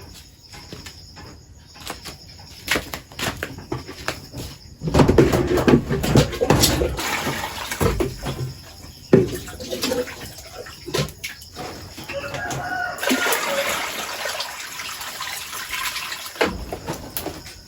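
Chickens clucking and flapping their wings, mixed with short knocks and rattles; the flapping and scuffling come in two louder spells, about five seconds in and again about thirteen seconds in.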